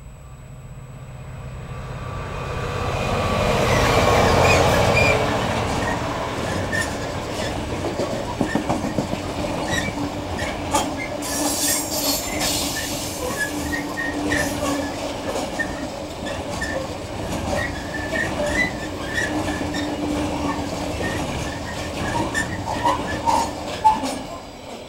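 Class 66 diesel locomotive, with its EMD two-stroke V12 engine, passing, loudest about four seconds in. A long rake of loaded coal hopper wagons follows, rattling and clicking over the rails with on-and-off wheel squeal.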